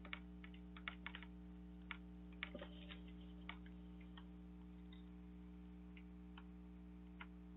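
Faint irregular taps and scrapes of a stylus on a tablet screen during handwriting, over a steady electrical hum.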